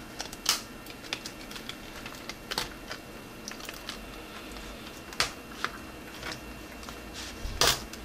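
Irregular light clicks and crackles of thin plastic backlight sheets and the LCD panel's plastic frame being handled and lifted apart by hand, with a few sharper snaps about half a second, two and a half, five and seven and a half seconds in.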